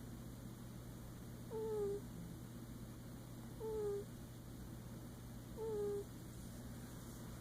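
A sleeping pet snoring with a squeaky, whistling tone on each breath. There are three short snores, each dropping a little in pitch, spaced about two seconds apart.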